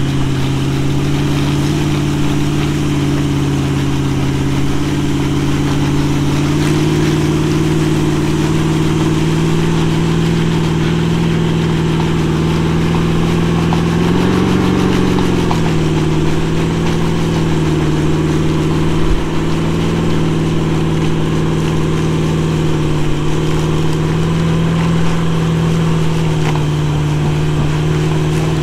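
A four-wheel drive's engine running steadily, its note rising briefly about halfway through before settling back.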